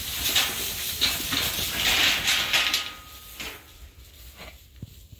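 Young Zwartbles and Suffolk ewes shuffling and jostling in a pen, rustling their straw bedding. It is loudest for the first three seconds, then fades.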